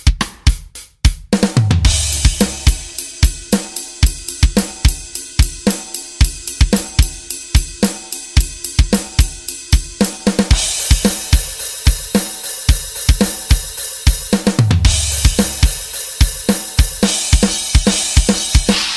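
Sampled drum kit from a phone drum app, a Yamaha kit with Paiste cymbals, played as a fast, steady groove of kick, snare and hi-hat at about four to five hits a second. A crash with a deep drum boom comes about a second and a half in and again near the end, with cymbals washing over the beat in the second half.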